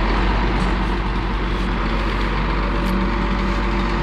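An engine running steadily at an even speed, a continuous low drone with noise over it that starts abruptly and holds level throughout.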